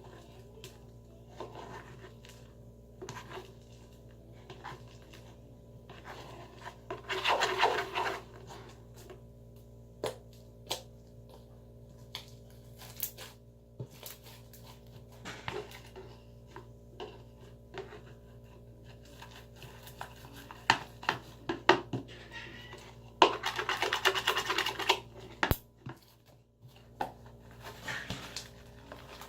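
Homemade glitter slime of clear glue activated with Tide being handled and worked by hand: scattered sticky clicks and pops, with two longer rustling bursts about seven seconds in and again near twenty-three seconds.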